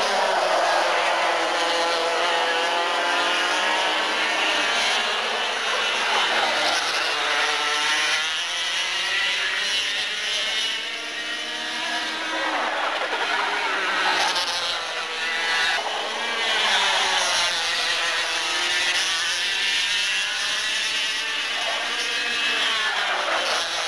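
A pack of Parilla two-stroke kart engines racing, several overlapping notes rising and falling as the drivers go on and off the throttle through the corners.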